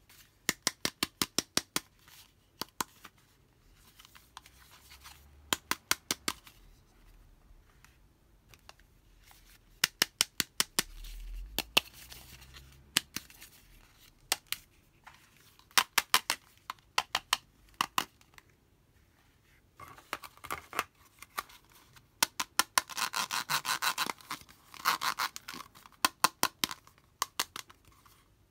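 Fingernails tapping on hollow pink plastic toys, a toy hair dryer and a toy handbag, in quick runs of sharp clicks with short pauses between. In the last third the taps give way to scratching and rubbing of nails along the toys' ribbed plastic.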